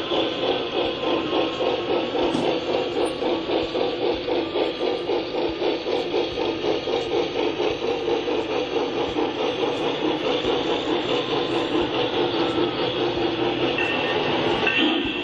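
A steady, rhythmic machine sound like a locomotive running, pulsing about four to five times a second over a steady hum.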